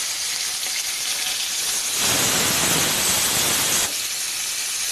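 Fish pieces frying in hot oil in a kadai, a steady sizzle. About two seconds in the sizzle grows louder for a couple of seconds as more pieces go into the oil, then settles back.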